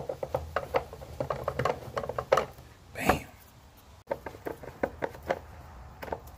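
Screwdriver turning screws into the plastic fuse box and air-filter housing in a car's engine bay: a quick, uneven run of light clicks and ticks, with one louder brief noise about three seconds in.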